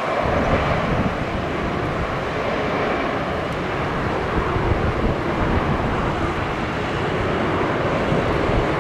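Airbus A320neo jet engines running at low power as the airliner rolls slowly along the runway after landing: a steady jet hum and rumble with a faint whine in the first few seconds.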